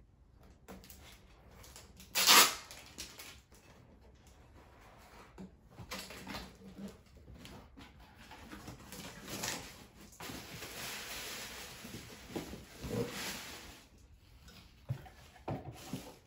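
Cardboard box being opened and handled, its flaps and packing rustling and scraping as a cut-crystal glass pitcher is drawn out, with a sharp knock about two seconds in.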